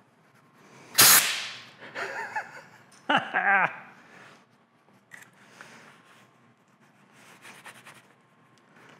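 Compressed-air blow gun blasting old, hardened grease out of a Monarch lathe's power compound: one loud burst of air about a second in, then two shorter spluttering bursts as air and grease spray out of the passage. Quieter rubbing follows as the splattered grease is wiped with a shop towel.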